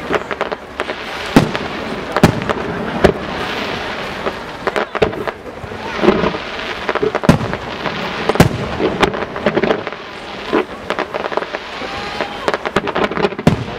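Display fireworks going off: a steady hiss and crackle of comets and fountains, broken by about a dozen irregular sharp bangs of shells bursting.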